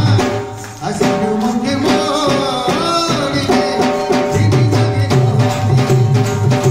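Live Rajasthani folk music: a singer's voice over held instrumental notes, with a drum beating a steady rhythm that drops out about half a second in and comes back after about four seconds.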